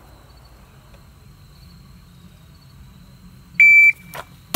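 Electronic shot timer's start beep, one steady high-pitched tone lasting about a third of a second near the end. Under a second later comes a single pistol shot fired from a draw out of an appendix holster.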